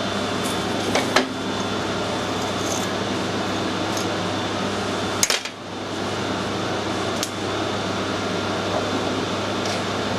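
Steady hum of machine-shop machinery with a few sharp metallic clicks and taps of tools being handled, once about a second in, again at about five seconds with a brief drop in the hum, and once more near seven seconds.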